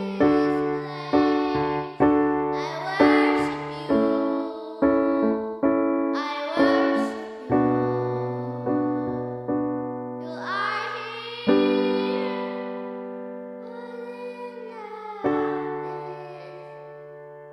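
Piano playing slow worship-song chords that ring and fade. A long held chord dies away in the second half, then one more chord is struck and fades.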